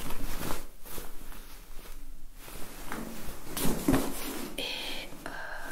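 Checked fabric trousers rustling and swishing in uneven strokes as they are handled, unfolded and held up close to a microphone.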